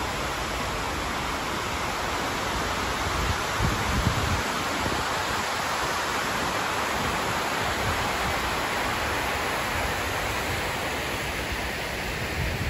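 Steady rush of falling water from the 9/11 Memorial reflecting pool's waterfalls cascading down its walls, with a brief low bump on the microphone about four seconds in.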